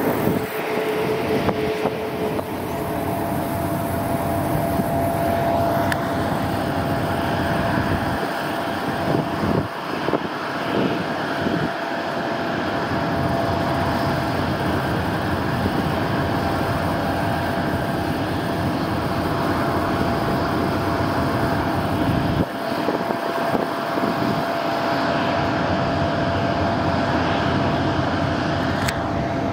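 Airbus A330-900's Rolls-Royce Trent 7000 turbofans running at taxi power: a steady jet rush with a constant whine held on one note.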